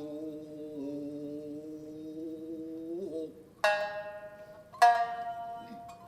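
Tokiwazu music: a singer holds one long, slightly wavering note for about three seconds, then two plucked shamisen notes ring out and die away, the second one louder.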